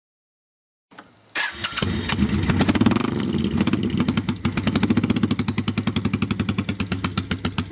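2003 Kawasaki Vulcan motorcycle's twin-cylinder engine starting: a brief crank about a second in, then it catches. It runs up a little for a second or so and settles into a steady, pulsing idle.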